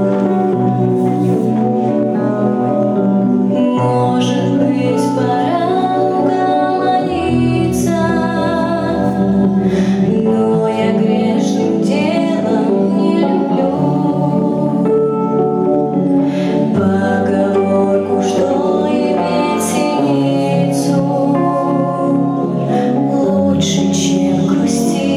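A vocal ensemble singing a slow song in long held chords over a bass line that moves every few seconds.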